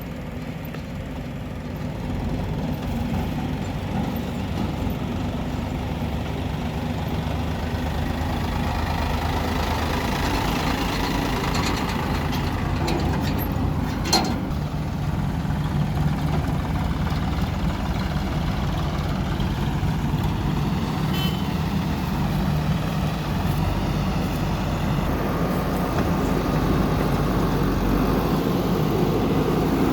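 JCB backhoe loader's diesel engine working steadily, gradually getting louder, with a sharp knock about fourteen seconds in.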